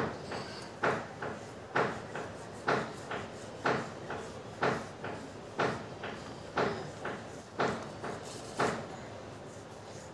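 A cloth rubbed on a turning bicycle disc brake rotor to clean it, making a short scraping stroke about once a second that stops shortly before the end.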